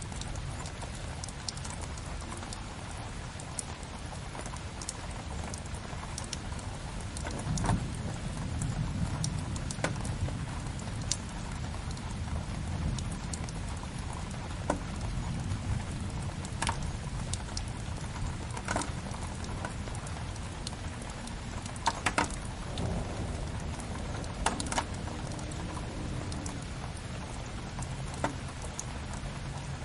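Steady rain with a fireplace fire crackling, its sharp pops coming at uneven moments, a few of them louder.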